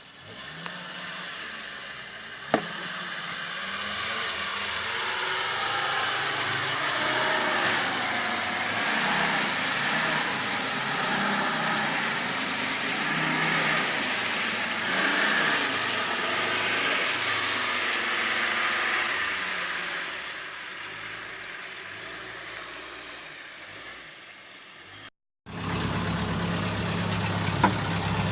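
Off-road 4x4's diesel engine running, growing louder over the first few seconds, holding steady, then fading away. A single sharp knock sounds about two and a half seconds in. The sound cuts off abruptly near the end, then a similar engine sound resumes.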